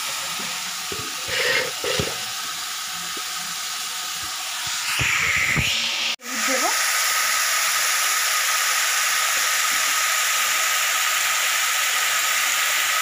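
Diced vegetables frying in an aluminium kadai on a gas burner: a steady hiss, with a few metal spatula knocks and scrapes in the first six seconds. The sound drops out for an instant about six seconds in.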